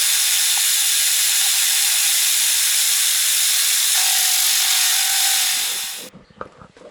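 Angle grinder grinding steel: a loud, steady hiss that stops abruptly about six seconds in.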